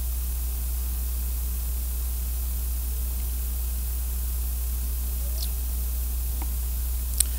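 Room tone: a steady low hum with an even hiss over it, and a single short click near the end.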